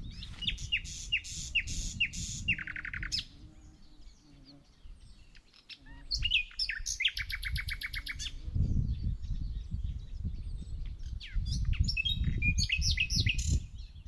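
A songbird singing. Its phrases are quick repeated down-slurred notes ending in a fast trill, heard twice, then a busier run of varied notes near the end, all over a low rumble.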